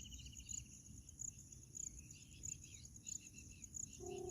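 Bush quail calls: a rapid trill in the first half second, then a run of short chirps from about two seconds in, over crickets chirping steadily.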